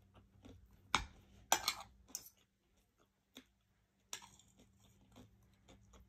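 Chewing and biting into flour-coated fried chicken breast, with a few sharp crunchy clicks about one and two seconds in and again about four seconds in.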